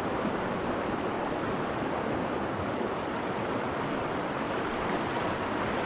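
Steady rushing of a fast-flowing river current around the canoe.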